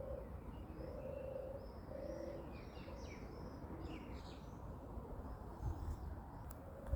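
European turtle dove purring its low, rolling call in repeated half-second phrases, falling silent for a few seconds midway. Higher-pitched chirps from other small birds come in the middle.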